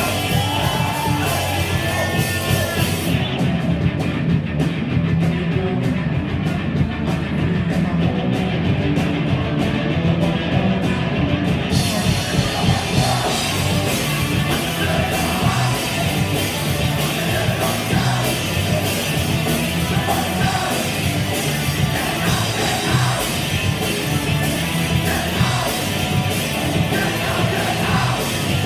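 Live rock band playing loud: electric guitars, bass and a drum kit, with a singer shouting and singing over them.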